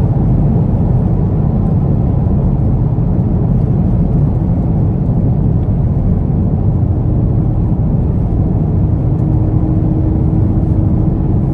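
Car engine and road noise heard from inside the cabin while driving at speed around a race track, a loud, steady low rumble. A faint steady hum joins about seven seconds in.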